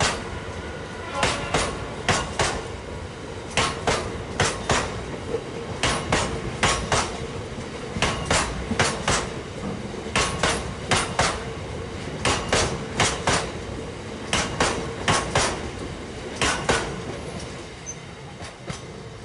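Freight train wagons rolling past, their wheelsets clicking over the rail joints in quick groups, over a steady rumble. The clicks stop as the last wagon goes by near the end and the rumble fades.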